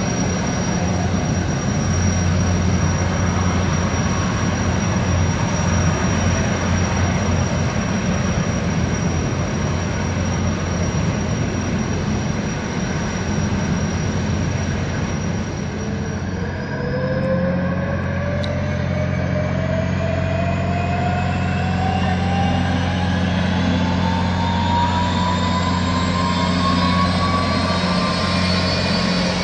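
Boeing 929 Jetfoil's gas turbines running with a steady low hum and a thin high whine while the craft comes in hull-borne. A little over halfway the high whine drops out and a new whine begins, rising slowly and steadily in pitch to the end.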